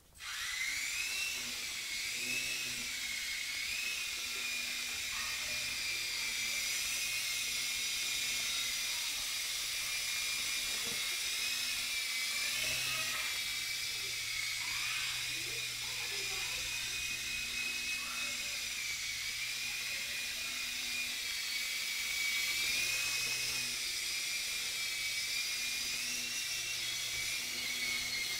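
Blade MCX micro RC helicopter flying: its tiny electric motors and coaxial rotors give a high whine that spins up right at the start, then wavers up and down in pitch with the throttle.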